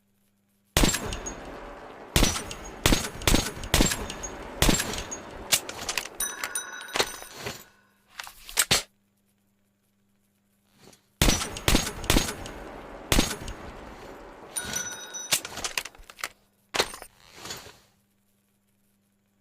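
Clapper rifle sound effect: two runs of sharp, rapid cracks like gunfire, each lasting about seven seconds, with metallic ringing clicks near the end of each run.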